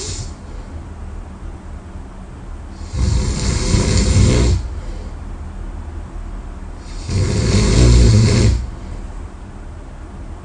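A person snoring loudly in sleep: two long snores about four seconds apart, each lasting about a second and a half, with quieter stretches between them.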